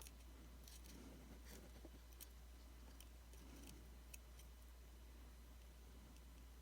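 Near silence with a low steady hum and a few faint, sharp clicks spaced apart: small parts being handled while an iPhone 5c is reassembled.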